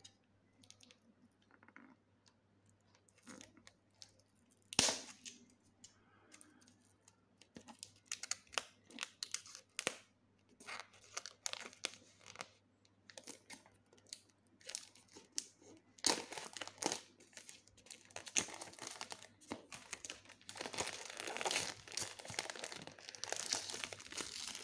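Plastic shrink wrap being picked at, torn and peeled off a cardboard box by hand. Scattered faint crackles and a sharp snap about five seconds in, then steady crinkling and tearing of the film for the last third.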